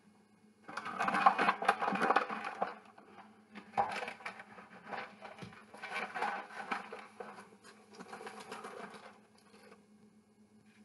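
Paper bag of granulated sugar rustling and crinkling as it is handled to measure out sugar, with scraping and pattering. It is loudest in a burst between about one and nearly three seconds in, then comes and goes in shorter bursts, dying away near the end.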